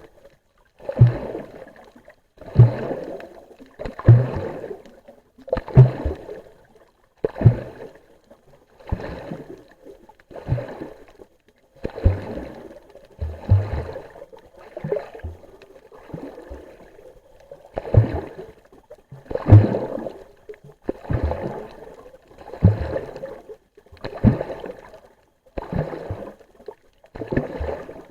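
Water rushing and sloshing against an underwater camera in regular surges about every one and a half seconds, each beginning with a low thump.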